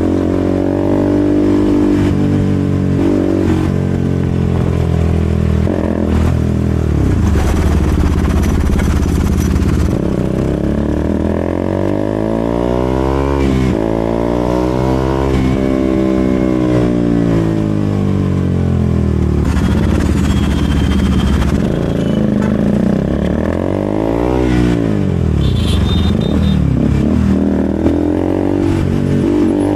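KTM RC 200's single-cylinder four-stroke engine running through an aftermarket SC Project exhaust while riding in traffic. The exhaust note keeps rising and falling with throttle and gear changes, with a quick drop and rise about three-quarters of the way through.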